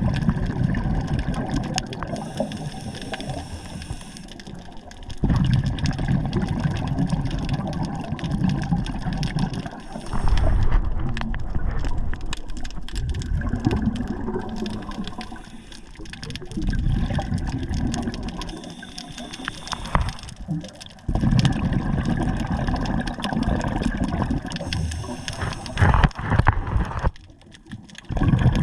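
Underwater bubbling and gurgling, in bursts of a few seconds that recur roughly every five seconds, typical of a scuba diver's regulator exhalations.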